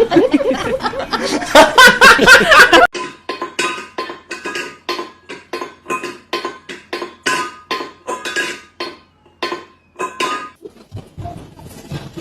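Repeated light clinking taps on something hard that rings, about two or three a second, after a loud jumble of sound in the first three seconds.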